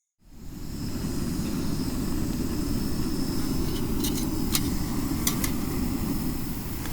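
A steady low rushing roar of the Tuolumne River's cascades fades in over the first second and holds. A few faint high ticks come about two thirds of the way through.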